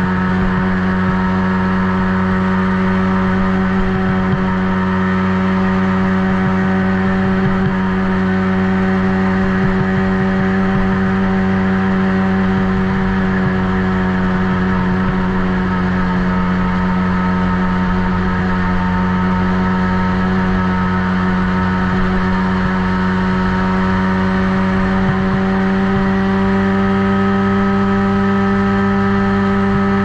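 Kids' ATV engine running on board at a steady, fairly constant pitch under held throttle while lapping a dirt track, edging slightly higher in pitch near the end.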